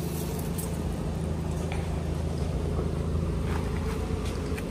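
Car engine running steadily, an even low hum with no change in speed.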